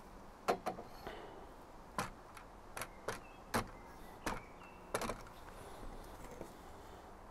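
A string of sharp clicks and light knocks, about nine in five seconds, from an LED light panel on its stand being handled and set down.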